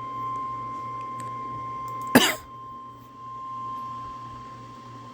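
NOAA Weather Radio's 1050 Hz warning alarm tone, one steady beep held throughout, heard from a radio receiver: it signals that a new warning follows. About two seconds in, a single loud cough cuts across it.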